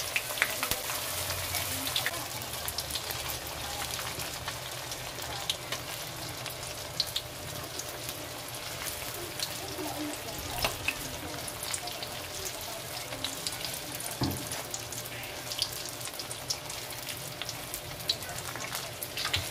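Lumpiang togue (bean-sprout spring rolls) deep-frying in hot oil in a wok: steady sizzling with scattered crackling pops and a few louder clicks.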